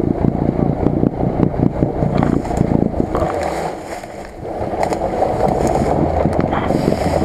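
Lada Niva's engine running under load as the car wades through deep river water, with water churning around the body and wheels; the sound drops briefly about four seconds in, then picks up again.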